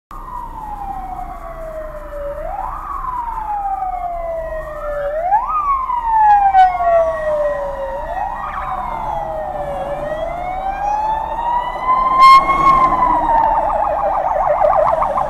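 Sirens of approaching Polish police vans wailing, each cycle rising quickly then falling slowly, with more than one siren overlapping. About twelve seconds in there is a brief loud blast, and near the end a siren switches to a fast warbling yelp.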